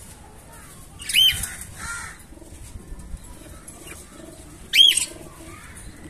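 Budgerigars calling: two loud, arched chirps, one about a second in and one near the five-second mark, with a shorter call between them.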